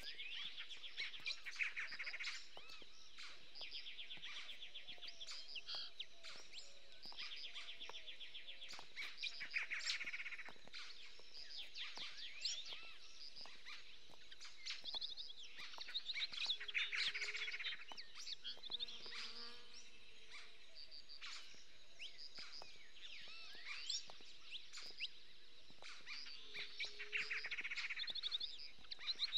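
Songbirds chirping and singing, with a fast trill every few seconds.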